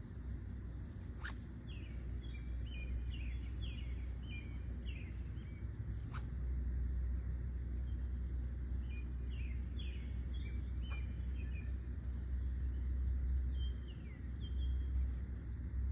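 Birds chirping in short repeated bouts over a steady low rumble, with a few faint ticks.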